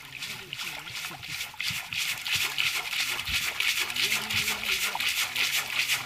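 People talking, over the steady high hiss and slosh of shallow river water around a person wading.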